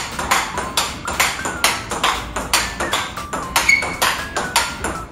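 Table tennis rally with a large 44 mm ball: sharp hollow clicks of the plastic ball striking rubber paddles and bouncing on the table, in a quick steady rhythm of about four hits a second.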